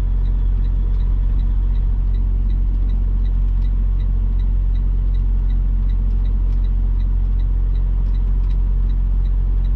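A semi-truck's diesel engine running steadily at low revs, heard inside the cab, with a light, even ticking about three times a second over it.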